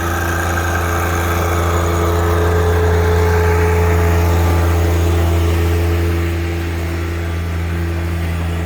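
An engine running steadily with a low hum, growing louder for a few seconds in the middle and easing back about six seconds in.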